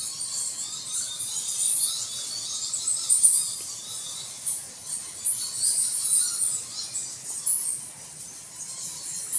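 Continuous high-pitched chirping and chittering from small animals, many calls overlapping and rising and falling irregularly.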